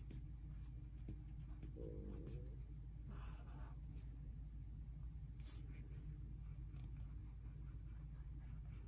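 Crayola felt-tip marker writing on paper: faint, irregular scratching strokes over a steady low hum.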